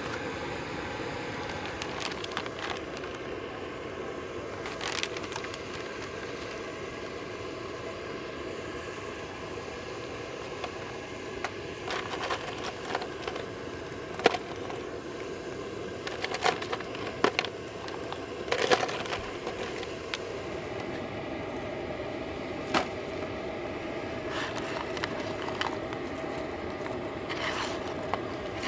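Camp cooking: a steady hiss of a gas burner and food in a hot cast-iron pan, with scattered sharp clacks and knocks of shellfish and a plastic tub being handled over a pot, clustered in the middle of the stretch.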